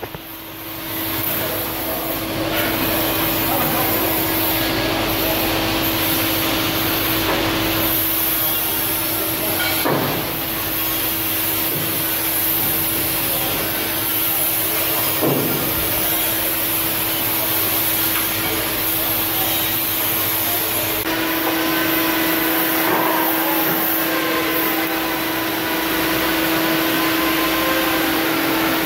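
Steady machine noise, a fan-like rush with a constant hum, with a couple of brief knocks about ten and fifteen seconds in.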